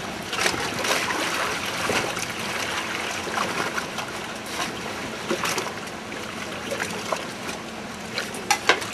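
Water splashing and trickling around the boat, with scattered small clicks and a few sharp knocks near the end.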